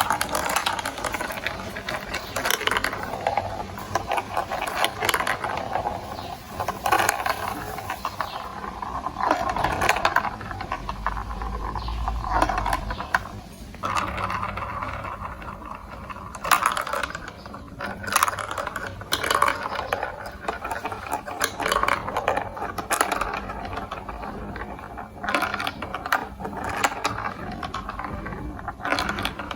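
Plastic marble-run building blocks and marbles clicking and rattling: a continual clatter of small knocks with stretches of steady mechanical whirring.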